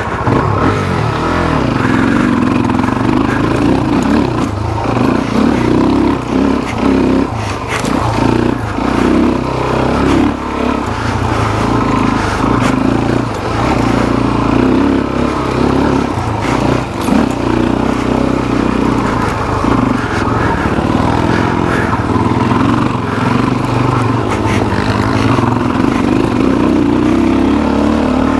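Suzuki DR-Z400SM's single-cylinder four-stroke engine running under a rider, its pitch rising and falling as the throttle opens and closes. Frequent short knocks and rattles come from the bike over rough ground.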